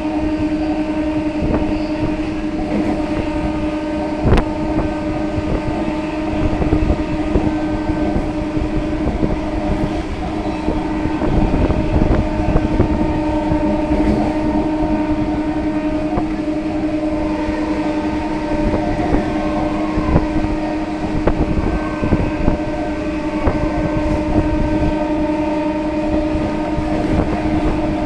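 Howrah–Bardhaman EMU local train running: a steady hum that holds one pitch throughout, over a rumble with irregular clicks and knocks of the wheels over the rail joints.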